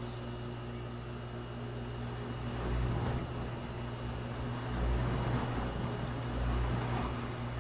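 Electric pump running: a steady mechanical hum with a low pulse that swells about every two seconds.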